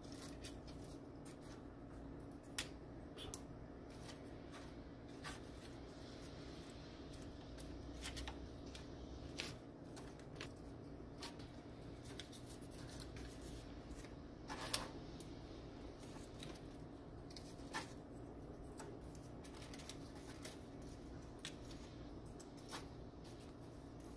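Crisp tortilla chip scoops being handled and set down on a parchment-lined pan: faint, scattered clicks and crinkles of dry chips against each other and the paper, the sharpest about 15 seconds in, over a steady low hum.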